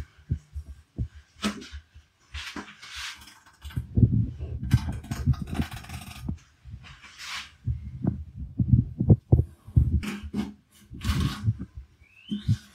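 Large knife cutting through a raw tuna loin on a wooden cutting board: several wet slicing and scraping strokes among many low, dull thuds of the fish and blade against the board.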